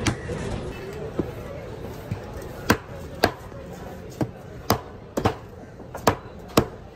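Heavy fish-cutting knife striking along a black bronze bream on a wooden chopping block, scaling it: sharp knocks, two early on and then about twice a second, steady and even.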